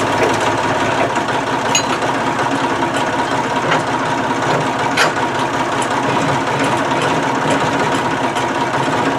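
Forklift engine idling steadily, with a few sharp metal clinks from tools on the engine block.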